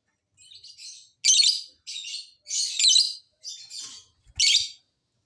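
Lovebird chattering call in about six shrill, raspy bursts with short pauses between them, the loudest a little over a second in, around three seconds and near the end.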